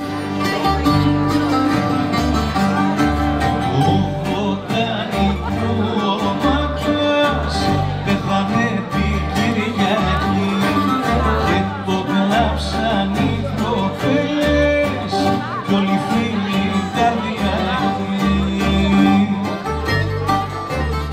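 Greek taverna band playing: bouzoukis plucking the melody over strummed acoustic guitar and a plucked double bass line.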